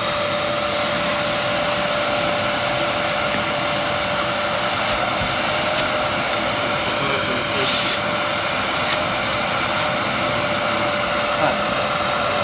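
Bosch vacuum cleaner running steadily, a constant rushing of air with a steady whine over it. A few light clicks sound partway through.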